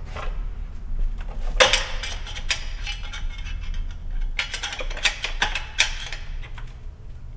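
Metal clinks and taps as hands work parts on a bare cylinder head: groups of sharp clicks, the loudest about one and a half seconds in, and a run of them between about four and a half and six seconds. A low steady hum underneath stops about four seconds in.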